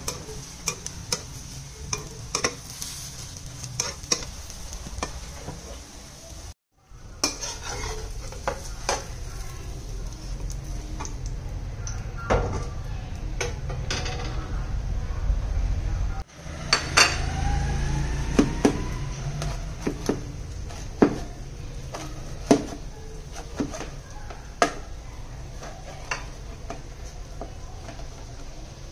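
Cha-om omelette sizzling in a frying pan while a metal spatula scrapes and clicks under it; after a break, a knife taps and clicks against the plate as the omelette is sliced into strips. Sharp clicks and knocks run throughout, with a brief rising squeak about halfway through.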